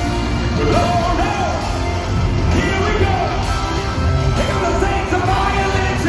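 Live rock band playing electric guitars and drums under a lead singer's vocal, loud and continuous, heard from the audience of a concert.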